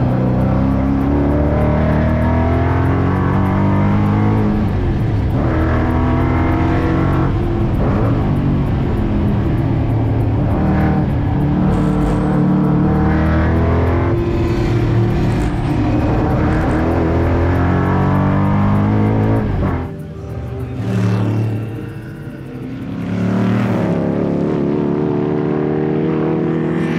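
Shelby Cobra 289's V8 engine at racing speed, heard from the cockpit, its revs climbing and dropping again and again through gear changes. About twenty seconds in it falls quieter for a few seconds, then rises again.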